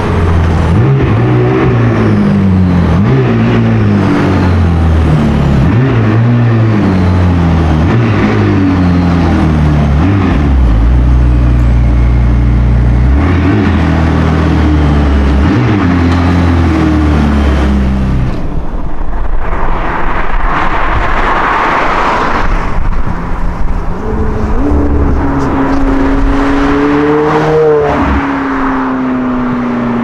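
McLaren 600LT's twin-turbo 3.8-litre V8 running with repeated throttle blips, its note rising and falling. After about 18 seconds it gives way to a car accelerating away, its engine note climbing and then dropping at a gear change.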